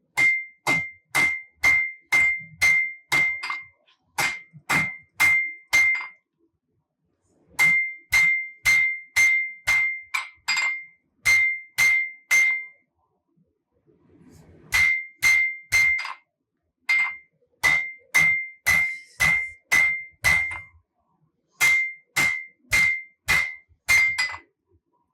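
Hand hammer striking a Damascus billet at forge-welding heat on an anvil, about two blows a second in runs with short pauses, each blow ringing at the same high pitch. These are blows meant to re-set the forge weld and close a split in the billet's layers.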